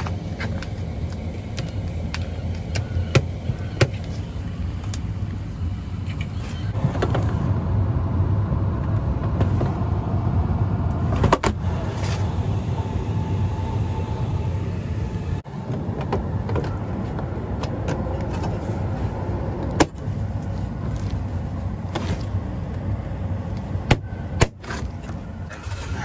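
Steady low hum of an HVAC air handler's blower motor running close by, with rustling of plastic vapor barrier sheeting underfoot and a few sharp knocks and clicks.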